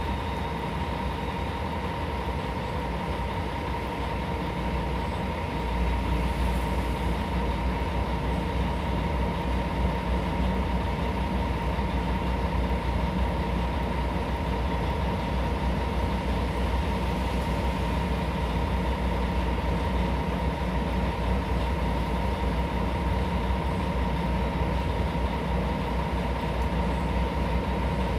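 Cabin noise of a Mercedes-Benz O500UA articulated city bus under way: a steady diesel engine and road rumble with a constant whine. The low rumble grows louder about six seconds in.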